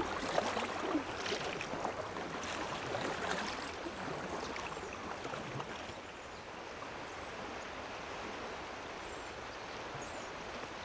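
Steady rush of flowing river water, with a few faint light splashes in the first few seconds.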